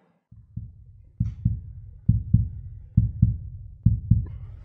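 Heartbeat sound effect: pairs of low thumps, lub-dub, repeating about once a second, starting about a second in.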